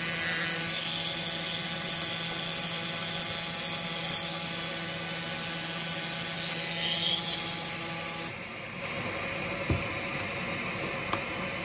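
Pneumatic air scribe (air pen) running with a steady buzz, cutting out about eight seconds in. A single knock follows a little later.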